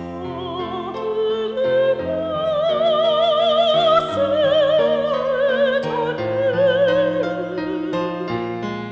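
Background music: an operatic singer holding long notes with heavy vibrato over a steady accompaniment.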